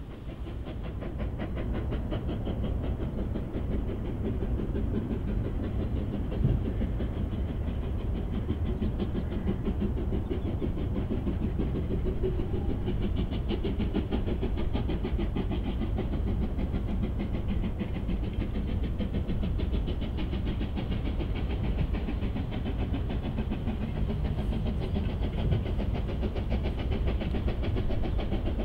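Steam-hauled train running along the line: a steady rumble that builds over the first couple of seconds and then holds.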